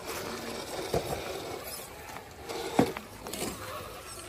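A few sharp knocks and scrapes of a 1/10-scale RC rock crawler working over rock on a steep climb. The loudest knock comes near three seconds in, a smaller one about a second in.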